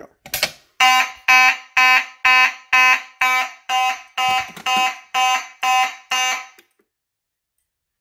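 A Simplex manual pull station is pulled with a click. A Simplex fire alarm horn then sounds in even blasts of about two a second, the march-time pattern of an activated alarm. It cuts off about six and a half seconds in when the system is silenced.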